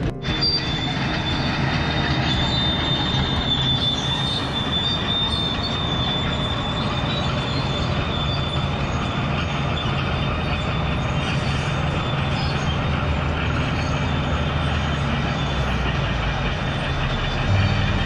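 Steady rumble and hiss of a vehicle travelling along the road, with a thin, high, steady whine over it.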